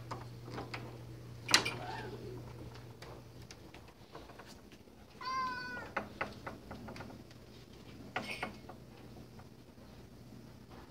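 A domestic cat meows once, a short call about five seconds in, asking to be let out of the door to relieve itself. A sharp tap is heard about a second and a half in, with a few fainter clicks scattered after it.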